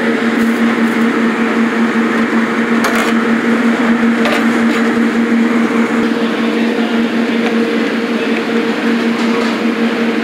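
Steady, loud mechanical drone of commercial kitchen equipment, with a constant low hum running through it and a couple of brief clicks about three and four seconds in.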